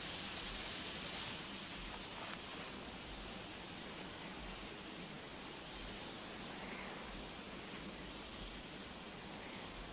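Faint steady hiss with no distinct events. It eases slightly over the first couple of seconds and then holds level.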